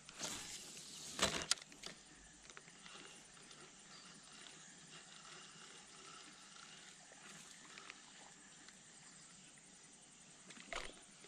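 Faint steady outdoor background hiss. About a second in there is a short rush of noise with two sharp knocks, and a brief rustle comes near the end.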